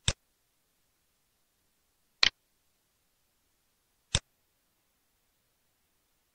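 Three sharp computer mouse clicks about two seconds apart, the middle one a quick double click.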